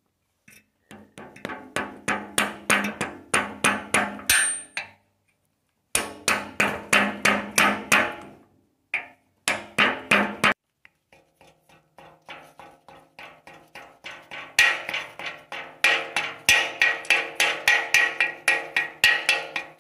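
Rapid hammer taps on a socket and extension bar, driving a steering stem dust seal into the head tube of a Yamaha Banshee frame. About five taps a second in four runs with short pauses, each tap with a metallic ring.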